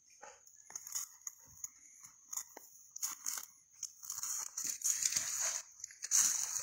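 Dry twigs, branches and leaf litter crunching and rustling under feet as someone moves through brush debris. The crackles come in irregular bursts and grow louder and busier about four seconds in. A steady high whine sits underneath.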